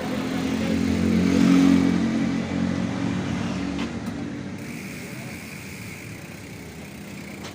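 A motor vehicle's engine passes by, growing louder for the first two seconds and then slowly fading away.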